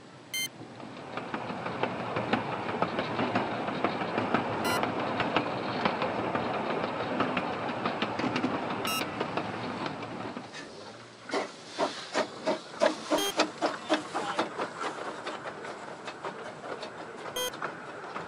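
Narrow-gauge passenger coaches running along the track, heard from on board: a steady rattling rumble for several seconds, then a run of regular wheel clicks, about two or three a second, over the rail joints before it settles back to a lighter rattle.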